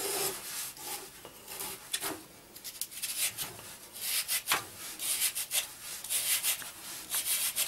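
Hand-held julienne peeler scraping down a raw carrot in repeated rasping strokes, cutting it into thin strips for Korean carrot salad. The strokes come faster and louder in the second half, about two a second.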